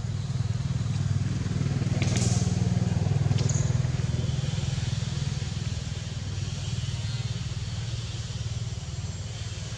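A motor vehicle engine running with a steady low hum, swelling about a second in and easing off over the last few seconds. Two short, sharp high sounds come about two seconds and three and a half seconds in.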